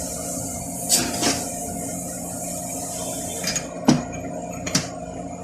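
A few short, sharp metallic knocks and clinks of transmission parts being handled and set down, over a steady background hum and a high hiss that stops about three seconds in.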